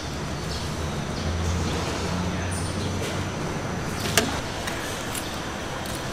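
Street-market background noise: a low engine-like hum that swells between about one and three seconds in, with a sharp click about four seconds in.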